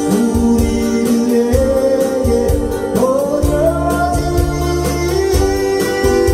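A man singing a Korean ballad into a microphone while strumming an acoustic guitar, over steady sustained low backing notes.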